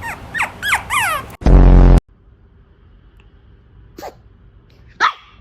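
A dog sneezing. First come four quick falling squeaky chirps, then a very loud low buzzing blast of about half a second that stops sharply. Two short sharp sneezes follow near the end, about a second apart.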